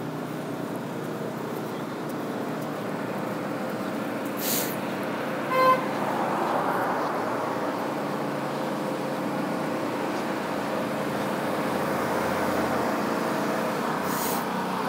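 Steady street traffic and engine noise, with one short car horn toot about five and a half seconds in.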